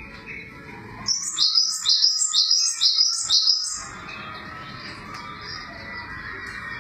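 Gelatik songbird singing a quick run of about seven repeated high, sliding notes, starting about a second in and lasting a little over two and a half seconds, over a faint steady background.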